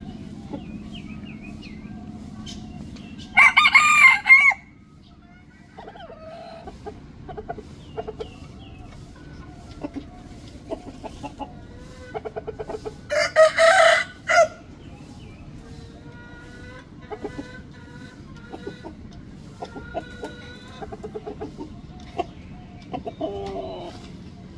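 Red junglefowl rooster crowing twice, each crow about a second long and about ten seconds apart, with short clucks and softer calls in between over a steady low hum.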